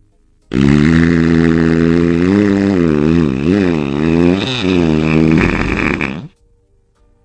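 A long, loud, low-pitched fart lasting about six seconds. Its pitch holds steady, then wobbles up and down in the middle before it cuts off suddenly.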